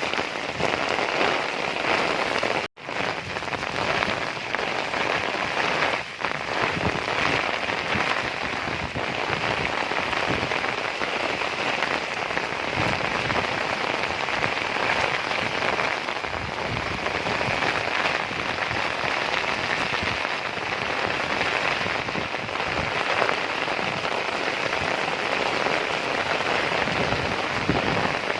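Heavy rain falling steadily, a dense unbroken patter. The sound cuts out for a split second about three seconds in.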